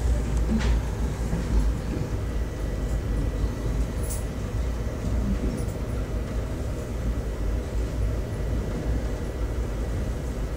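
Steady rumble of a passenger train running at speed, heard from inside the coach: wheel and track noise with a faint tick or two.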